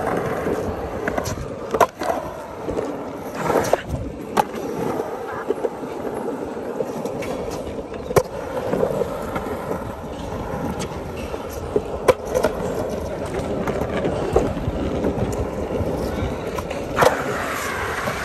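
Skateboard wheels rolling over pavement with a continuous rumble, broken by several sharp clacks of the board.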